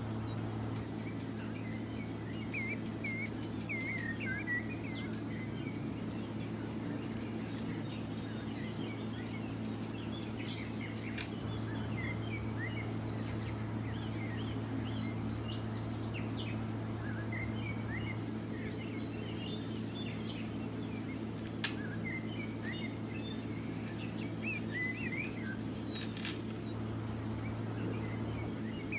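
Small birds chirping on and off in short twittering calls over a steady low hum, with a few sharp clicks.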